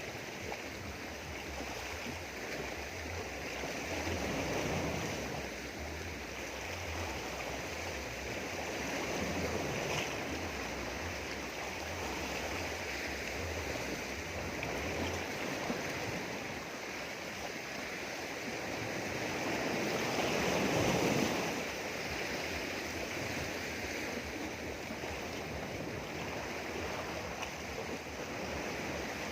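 Sea waves washing in over rocks, a steady rush of surf that swells and ebbs every few seconds, with one bigger wave about two-thirds of the way through.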